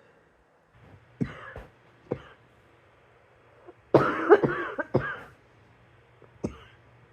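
A person coughing in bouts: single coughs about one and two seconds in, a harder run of three or four coughs about four seconds in, which is the loudest part, and one more cough near the end.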